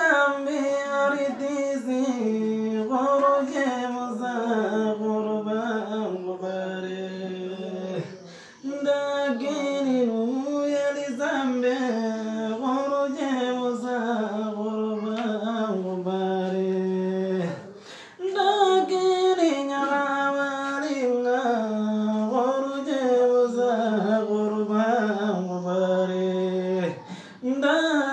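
A man singing unaccompanied in long phrases with held notes and many turns of pitch, breaking off for breath about every nine seconds.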